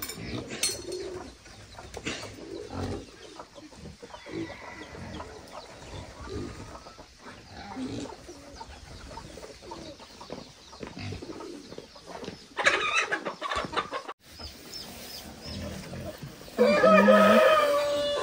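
Chickens clucking, with a rooster crowing in one long call near the end.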